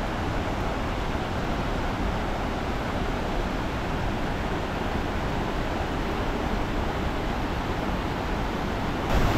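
Steady rushing noise of flowing water.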